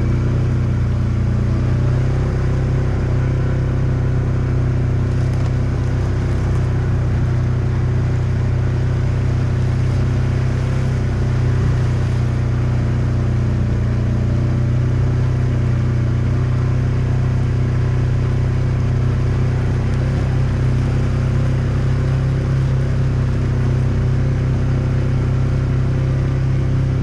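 Polaris side-by-side's engine running steadily at an even speed, a constant low hum with no revving.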